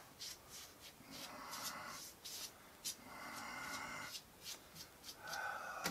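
Foam sponge brush wiping oil onto sanded wood: faint, scratchy rubbing strokes about a second long, three of them, with small ticks between.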